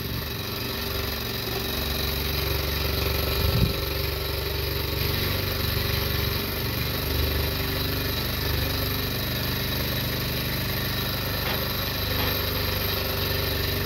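Small twin-cylinder Stirling engine with glass cylinders running on the heat of its alcohol wick burners, its pistons, linkage and flywheel making a steady rapid mechanical clatter. A single knock sounds about three and a half seconds in.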